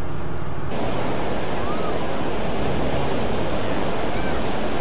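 Steady rushing beach ambience of wind on the camcorder microphone and surf, setting in just under a second in.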